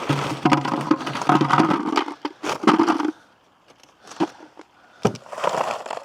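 Chickens clucking with knocking and clicking as frozen watermelon is put into their coop: a dense spell for about three seconds, then a couple of shorter bursts.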